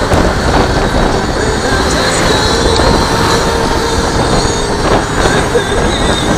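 Steady wind rumble on the microphone of a moving Honda Click 150i scooter, with the scooter's engine and road noise underneath.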